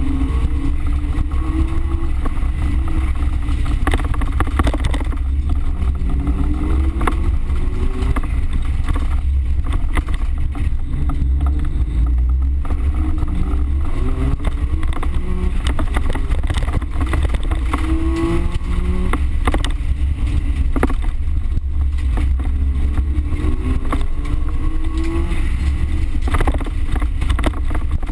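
Race car engine heard from inside the cabin, its revs climbing and dropping back again and again as it accelerates and shifts, over a heavy low rumble from the rough dirt track. Sharp knocks and rattles break in now and then.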